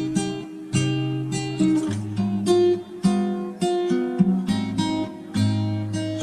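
Background music: acoustic guitar playing strummed and plucked chords, each new chord struck every half second to a second.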